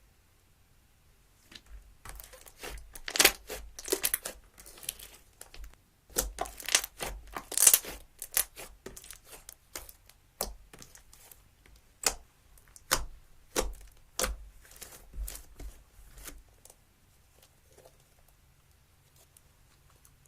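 Slime being worked by hand, giving an irregular run of crackling pops and clicks that stops about three quarters of the way through.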